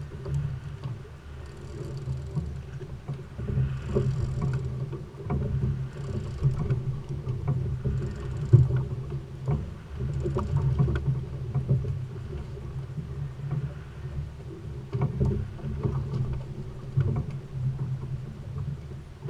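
Boat's Volvo Penta D4-225 diesel engine running steadily at low speed, with water splashing against the hull and scattered small knocks.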